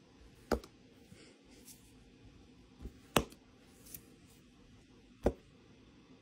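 A handful of short, sharp taps at a computer desk, about five spread over several seconds, with the loudest near the middle and another near the end, over quiet room tone.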